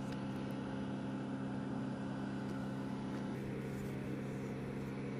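A machine running with a steady low hum, several even tones held without change over a noisy rush.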